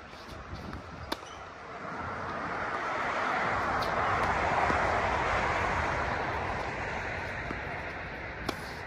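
A passing vehicle's rushing noise swells over a couple of seconds and fades away again. Sharp knocks of tennis balls hit by rackets come about a second in and near the end.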